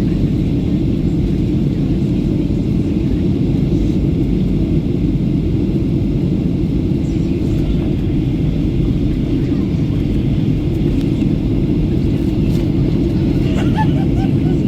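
Steady low rumble of a Boeing 737-800 heard from inside the cabin during descent: engine and airflow noise from the jet's CFM56 turbofans.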